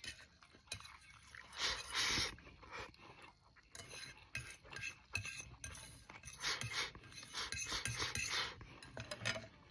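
Close-up clinks and scrapes of eating utensils against a dish and container.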